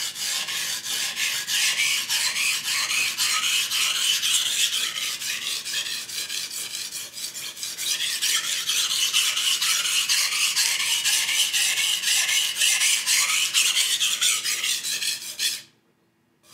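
Knife blade stroked back and forth across a whetstone in quick, regular strokes, a steady rasping scrape. It is more work on the back side of the edge, evening it out to match the front. The strokes stop abruptly near the end.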